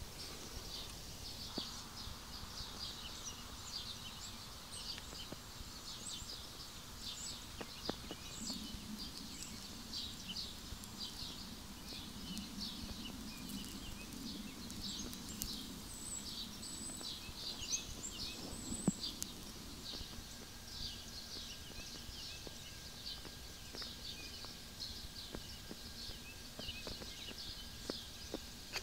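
Forest ambience with small birds chirping: many short, high chirps scattered throughout, with a few soft knocks and a faint thin steady tone in the last third.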